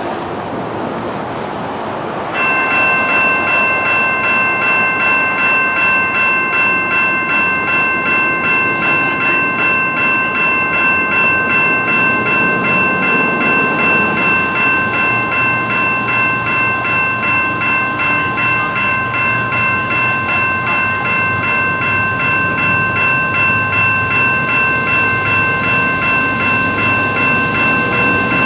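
Level-crossing warning bell starting about two seconds in and ringing steadily in a quick regular pulse, over the rumble and wheel clatter of a train rolling through the crossing.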